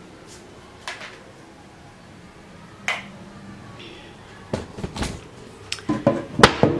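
Handling noise from a handheld camera on the move: a faint steady hum with a sharp click about a second in and another about three seconds in, then a quick irregular run of louder clicks and knocks in the last two seconds.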